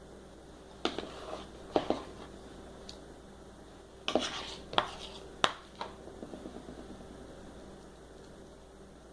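A spoon knocking and scraping against dishes while filling is scooped: a couple of sharp clicks a second or so apart, then a cluster of louder knocks about four to six seconds in.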